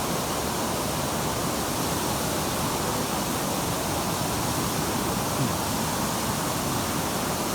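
Steady rush of a waterfall pouring over rock, an even roar at constant level.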